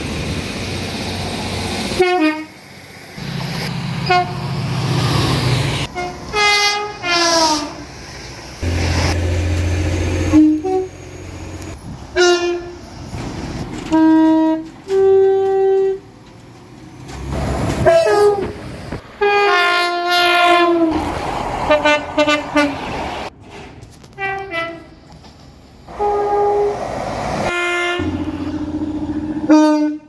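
A string of passenger trains sounding their horns one after another: short two-tone blasts, each stepping between a higher and a lower note, with the rumble and running noise of the trains between them. The sound changes abruptly every few seconds as one train gives way to the next.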